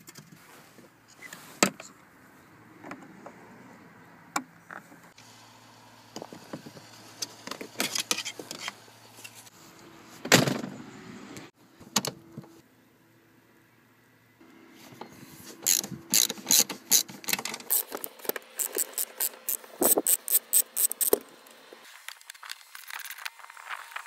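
Hand tools working on a car seat's floor fixings: scattered clicks and knocks, then in the second half a fast run of regular clicks, about five a second, as a ratchet spanner undoes the seat's 13 mm front nuts.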